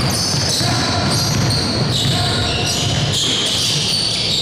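Basketball game on an indoor court: a ball bouncing and repeated short, high-pitched sneaker squeaks on the floor.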